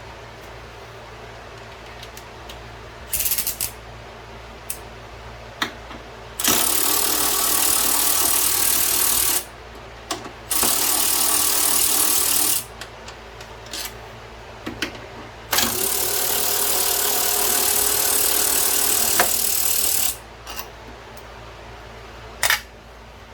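A power tool runs in three long bursts of a few seconds each, with short blips between, as bolts are run out during the engine teardown.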